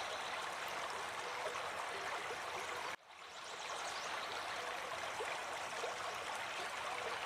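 River water flowing steadily over rocks, a constant rushing and gurgling. About three seconds in, the sound cuts out abruptly and fades back in within half a second, an edit in the recording.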